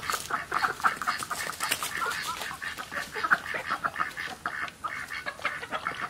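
Chickens clucking and ducks quacking, a steady run of short calls.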